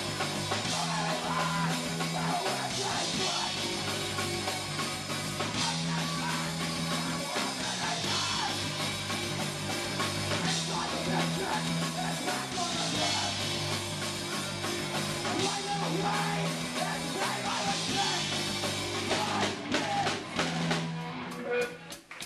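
Live punk rock band playing loud and fast: distorted electric guitar, bass and drum kit over a repeating riff. Near the end the full band sound breaks off into separate drum hits.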